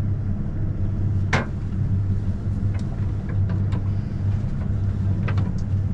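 Twin outboard motors running with a steady low hum, with a few sharp clicks and knocks over it, the loudest about a second and a half in.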